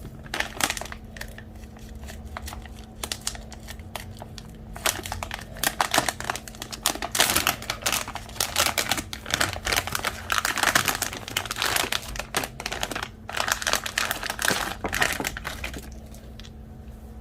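Crinkling and irregular clicking from hands working the tail light wiring and small plastic parts, over a faint steady hum.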